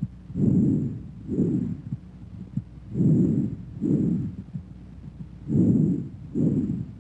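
Bronchovesicular breath sounds heard through a stethoscope over the chest: three breaths, each an inspiration and an expiration of about equal length with only a short gap between them.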